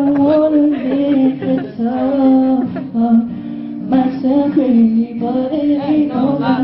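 Live vocal group singing a boyband medley, several voices holding notes together and moving between phrases, with short breaks between lines.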